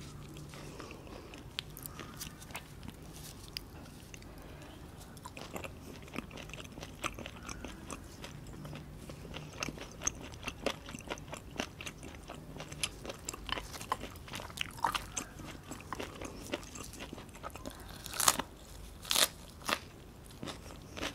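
Close-miked eating of grilled chicken: steady chewing with many small crisp bites, and a few louder crunches near the end.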